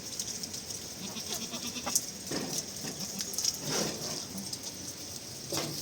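An animal bleating three times in short, wavering calls, the middle one the longest, over a steady high hiss.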